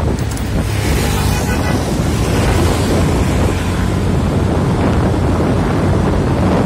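Wind rushing over the microphone of a moving motorcycle, over the steady running of its engine.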